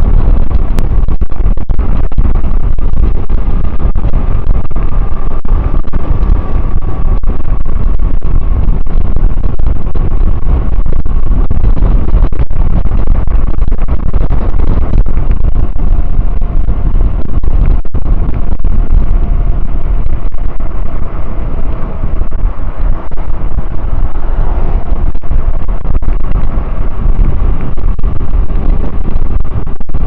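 Heavy wind rushing and buffeting over an action camera's microphone as e-bikes coast fast downhill, with a faint steady high whine underneath.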